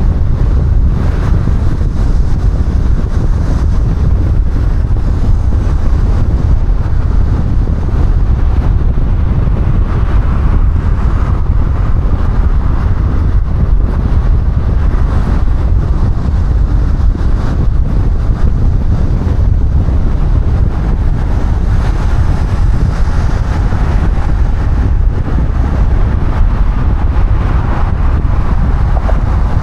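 Steady road and wind noise of a car being driven: a constant low rumble with a softer rushing hiss above it, unchanging throughout.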